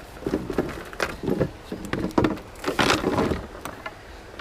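Kayak and paddle knocking and scraping irregularly against the hull and rocks, with a louder scraping rush about three seconds in.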